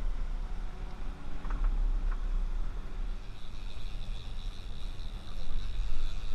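Twin outboard motors running steadily under way, with wind rumbling on the microphone. A faint high whine joins about three seconds in.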